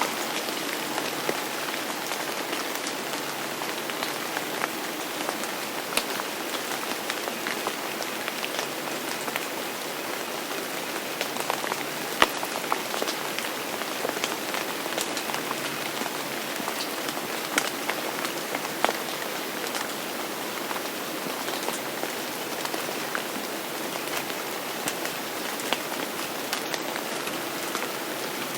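Steady rain falling on a surface, with many scattered individual drop impacts standing out, a few of them louder.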